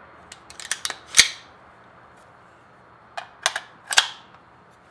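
Metallic clicks and clacks of an AR-15 rifle's action and magazine being worked by hand, in two quick clusters: one about a second in, ending in the loudest clack, and another around three to four seconds in.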